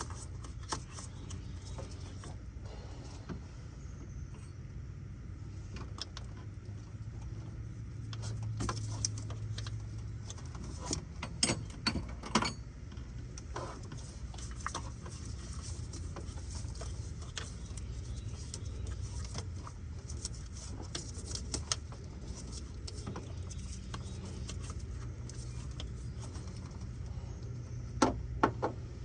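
Hand tools working on car parts under the hood while a starter is being removed: scattered metallic clicks and clinks, with a cluster about 11 to 12 seconds in, over a steady low hum.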